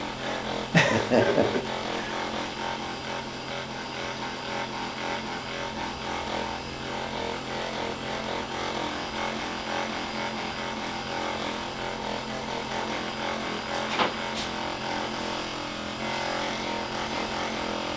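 Handheld electric massager running steadily while it is worked over tight muscle to loosen it. A single sharp click about fourteen seconds in.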